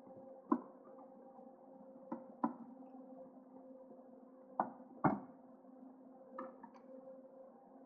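Scattered clicks and light knocks of plastic interior trim being worked and handled, about seven in all, the loudest pair about five seconds in, over a faint steady hum.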